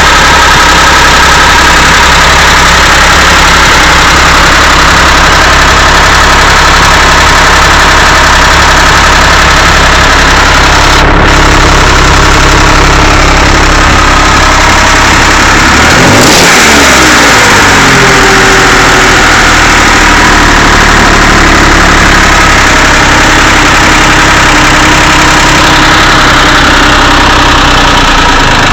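Rebuilt Porsche 911 air-cooled flat-six running at idle, revved up once about halfway through and dropping back to idle. It knocks, rattles and ticks, which the owner takes for the sign of a badly done rebuild.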